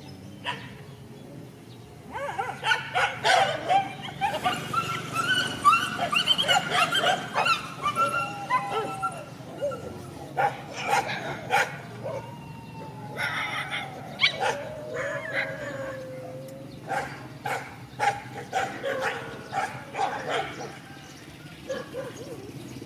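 A group of dogs fighting and squabbling: a dense burst of yelping and yipping starts about two seconds in, followed by sharp barks, a long wavering whine in the middle, and more scattered barking towards the end.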